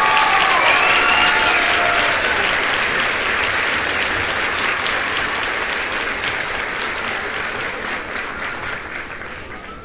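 Crowd applause with voices cheering in the first couple of seconds, fading steadily toward the end.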